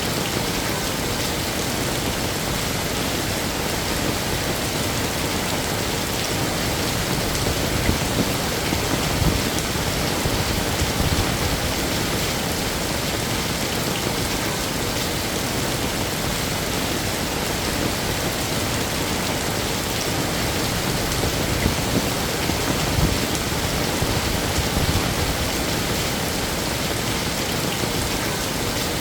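Heavy rain falling steadily, a dense even hiss of drops on surfaces. It swells a little louder and lower twice, about a third of the way in and again near two-thirds.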